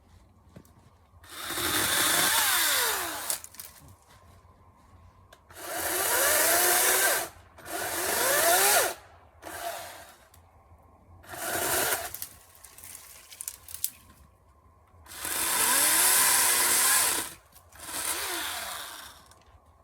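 Ryobi 40-volt 14-inch battery-powered electric chainsaw run in six short bursts with pauses between, cutting branches. In each burst the motor's pitch rises as it spins up and falls as it winds down. The saw is a little slow to respond to the trigger.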